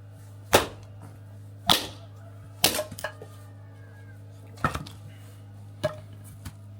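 Axe chopping into wood: five sharp strikes at uneven intervals about a second apart, over a steady low hum.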